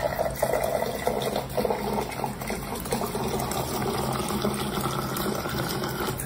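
Water pouring in a steady stream from an Electrolux countertop water dispenser into a plastic cup, the filling note climbing slowly as the cup fills.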